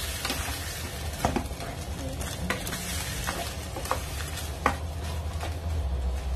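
Wooden spatula stirring tomatoes and onions frying in a little stock in a nonstick pan: a steady sizzle with a few sharp taps and scrapes of the spatula against the pan, over a low steady hum.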